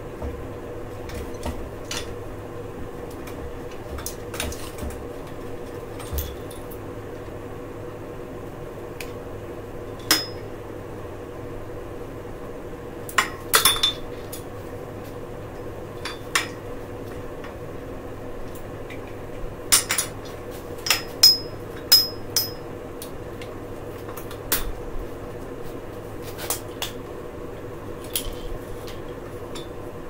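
Scattered metal clicks and clanks of tools and bicycle parts being handled on a mountain bike, a few with a short metallic ring, bunched about halfway through and again a few seconds later, over a steady hum.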